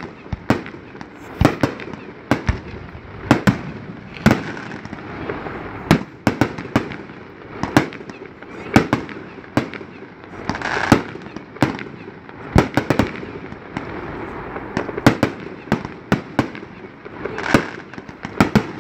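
Fireworks display: aerial shells launching and bursting in a steady barrage of sharp bangs, one or two a second.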